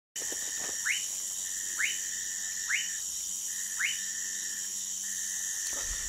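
Orinoco lime tree frog (Sphaenorhynchus lacteus) calling: four short, rising whistle-like notes about a second apart, over a steady high-pitched background drone.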